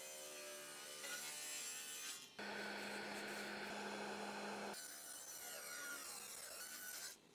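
Table saw running and ripping a strip of wood, with a denser cutting noise for about two seconds in the middle. The saw then winds down and goes quiet just before the end.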